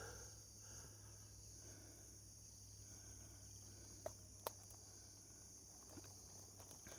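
Near silence with a faint, steady chirring of crickets, and two small clicks about four seconds in.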